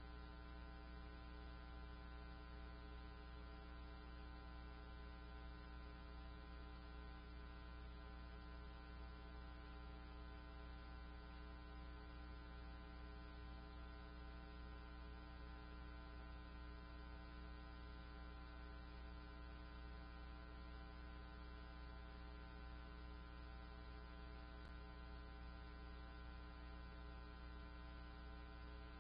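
Faint, steady low electrical hum with many evenly spaced overtones, unchanging throughout, with a single faint click late on.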